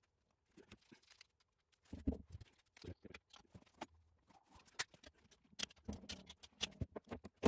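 Faint, scattered clicks and knocks of hand tools and steel parts being handled on a bare engine block's main-cap studs, growing into a quicker run of sharp clicks over the last two seconds as a long torque wrench is fitted to a main-cap stud nut.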